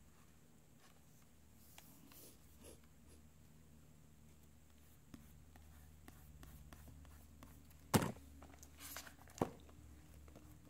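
Faint handling noises of an iPad being moved, then a sharp knock about eight seconds in as it is set down on its folio case, followed by a short rustle and another sharp click.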